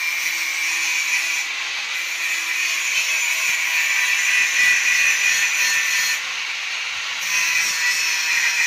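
Electric angle grinder with a cutting disc cutting into scrap steel: a steady high whine with a grinding hiss. About six seconds in the cutting noise eases for about a second, then the disc bites again.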